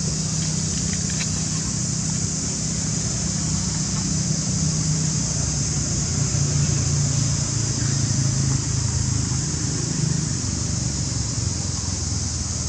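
Steady outdoor background noise: a constant low rumble with an even high-pitched hiss above it, and no distinct animal calls.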